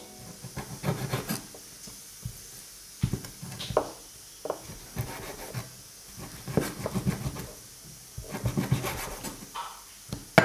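Cleaver chopping goat meat and skin on a wooden cutting board: irregular runs of knocks with scraping in between, the loudest chop at the very end.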